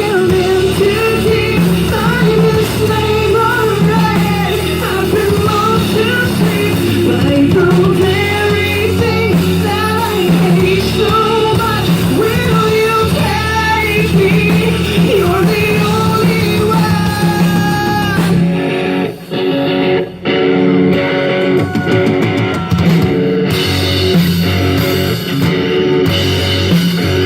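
Christian rock song played live with guitar: a wavering lead melody over a steady bass line, with no clear sung words.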